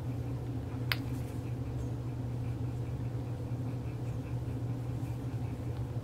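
Steady low hum of the room, with a single sharp click about a second in and faint small handling noises.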